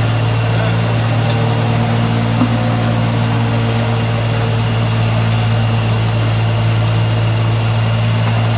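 Mini continuous olive-oil extraction machine running, its motors giving a steady, even hum.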